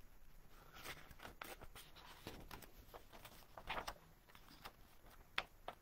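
Faint rustling and scraping of paper as a picture book's page is handled and turned, with a louder crackle about two-thirds of the way through and a sharp one near the end.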